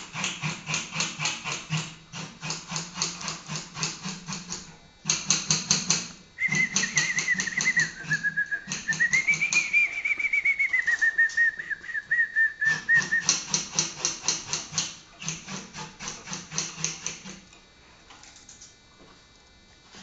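Malinois (waterslager) canary singing: long rolls of rapid repeated notes in phrases with short breaks, and in the middle a whistled tour that dips and rises in pitch over the rolling notes. The song stops about three seconds before the end.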